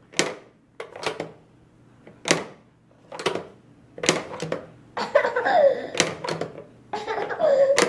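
Plastic pop-up toy clicking and clacking as a toddler presses its buttons and the spring-loaded lids pop up and are pushed shut, a sharp clack roughly every second. Brief voice sounds come in the second half.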